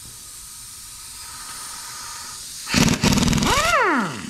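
Pneumatic impact wrench loosening a nut on an engine's cylinder head: soft air hiss, then about two and a half seconds in a loud rapid hammering burst of about a second, followed by a falling whine as the air motor spins down.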